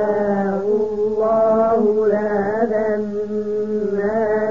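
A male voice chanting Quranic verses in slow, melodic tajwid recitation, holding long drawn-out vowels with small turns in pitch, with short breaks about a second in and near the end.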